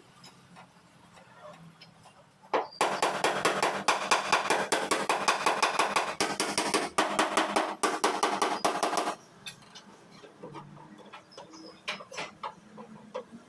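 Hammer blows on the sheet steel of a truck cab being panel-beaten: scattered light taps, then about three seconds in a fast, dense run of strikes lasting around six seconds that stops suddenly.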